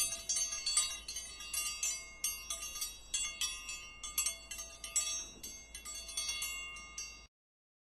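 A shower of light, high chimes, many quick tinkling strikes ringing over one another, that cuts off suddenly near the end.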